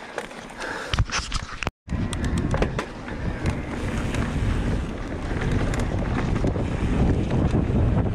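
Wind buffeting the microphone and tyres rumbling over a dirt singletrack as an electric mountain bike rides fast downhill, with scattered clicks and knocks from the bike over bumps. The sound cuts out for a moment about two seconds in, then the rumble carries on at full speed.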